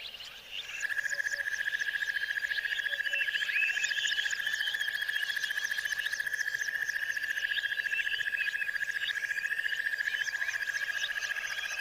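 A chorus of calling animals: a steady, rapid high trill that starts just under a second in and carries on, with many short chirping calls over it.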